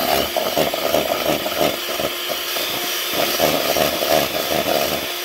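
Electric hand mixer running steadily, its whisk beating a runny hot chocolate mixture in a plastic bowl, with an uneven chatter over the motor's hum.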